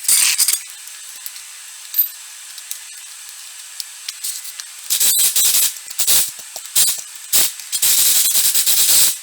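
Pneumatic impact wrench fitted with a torque stick, run in short hissing bursts to tighten the wheel lug nuts. A short burst comes at the start, a brief blip about two seconds in, then a series of bursts from about five seconds in, the last one the longest.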